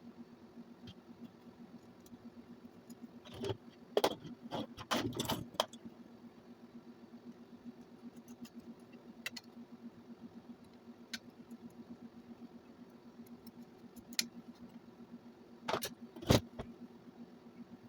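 Small hard parts clicking and clattering while being handled, in two clusters: one a few seconds in, the other near the end. A steady low hum runs underneath.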